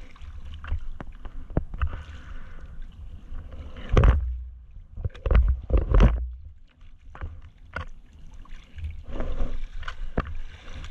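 Sea water splashing and sloshing against a surfboard as a surfer arm-paddles through chop, with a low rumble throughout and several loud splashes, the largest about four and six seconds in.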